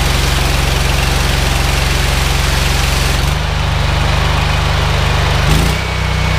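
Honda GX690 V-twin engine running steadily, driving a belt-driven pressure washer pump, with the hiss of the high-pressure water jet. The hiss stops about halfway through as the spray stops, and the engine note shifts briefly near the end.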